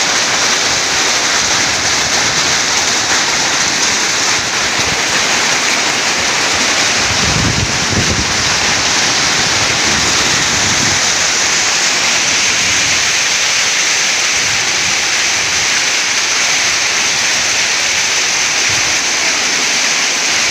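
Heavy hailstorm: hailstones and rain pelting down in a steady, dense hiss.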